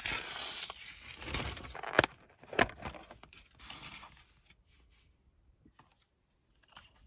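Clear plastic film wrap crinkling and tearing as it is pulled off a plastic food tray, followed by two sharp plastic clicks about two and two and a half seconds in, then a few faint taps.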